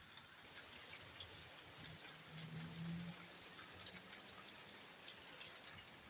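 Heavy rain falling steadily: an even hiss with scattered drips and taps. A faint low hum rises briefly in the middle.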